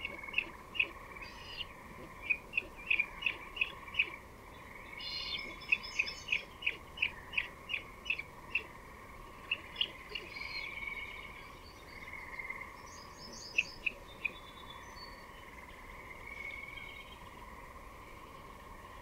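Birds calling: quick runs of short sharp chip notes with higher twittering phrases between them, over a faint steady drone.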